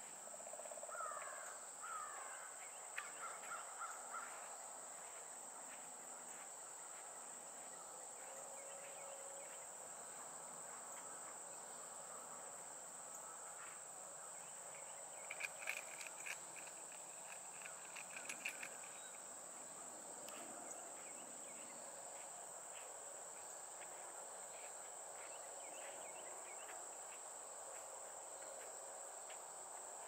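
Steady high-pitched insect chorus, with scattered bird calls over it: two short downward-sliding calls about a second in, a short run of notes a couple of seconds later, and a louder rapid series of notes mixed with sharp clicks about halfway through.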